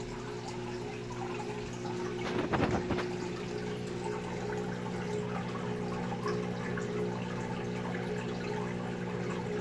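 A steady low electrical hum with a faint trickle of running water, as from a pump or filter running in the room. About two and a half seconds in there is a brief louder rustle.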